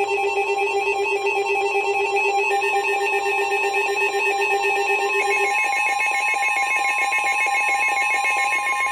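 NOAA Weather Radio 1050 Hz warning alarm tone, a steady single tone that signals a new warning is about to be read. It is overlaid with a fast warbling, ringing electronic alert made of several alternating notes; the lowest note drops out about halfway through and the warble changes pitch.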